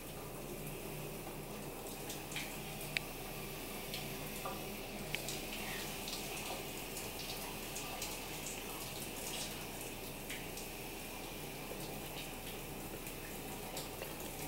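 Shower running steadily behind the curtain in a small tiled room, with a few faint clicks.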